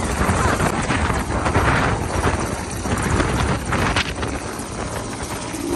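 Helicopter running on the pad: a steady, dense engine and rotor noise, with rotor wash buffeting the microphone.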